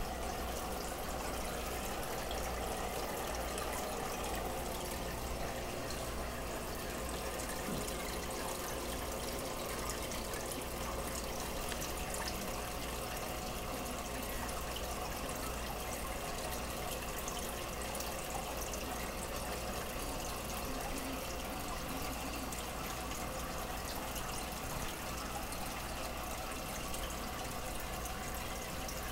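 Aquarium water circulating: a steady trickle and splash of water from the tank's filter and bubbles, with a faint low hum underneath.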